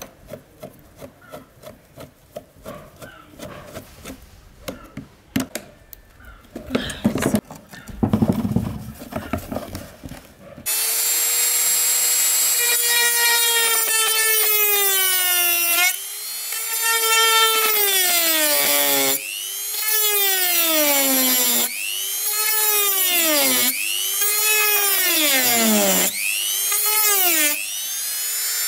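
A screwdriver clicking and scraping against a rusted fan switch in its plastic housing, with a few louder knocks around seven to nine seconds in. About eleven seconds in, a handheld rotary tool with a cut-off disc starts with a high whine and cuts into the switch's rusted metal. Its pitch sags under each cut and climbs back when the disc eases off, several times over.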